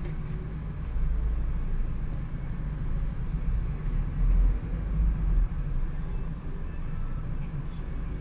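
Steady low rumble of a vehicle's engine and road noise, heard from inside the moving vehicle.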